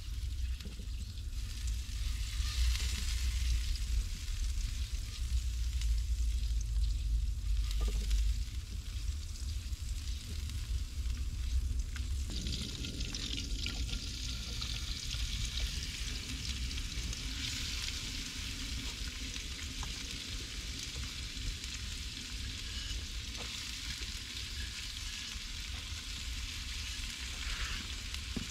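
Food sizzling in a frying pan over campfire embers. The sizzle gets louder about twelve seconds in, as more food is tipped into the hot pan. A low rumble runs under it for the first eight seconds or so.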